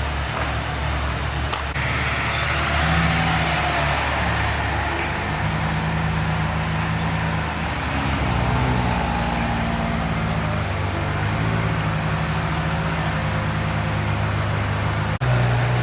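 Car engine running at low revs in street traffic, its deep note stepping up and down in pitch over a background of traffic noise. The sound drops out briefly near the end.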